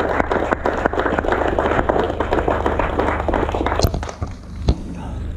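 Crowd applauding, with one person's hand claps loud and close among them. The applause dies away about four seconds in, followed by one last single clap.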